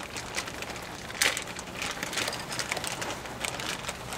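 A plastic parts bag crinkling and rustling in the hand, with irregular crackles and one sharper crack a little over a second in.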